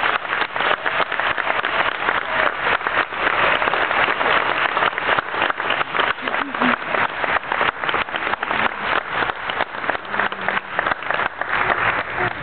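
Audience applauding, with sharp individual claps close by at about four or five a second.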